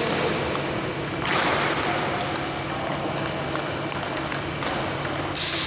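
Table tennis rally: a few light clicks of the ball off bats and table under a steady rushing hiss that swells about a second in and again near the end.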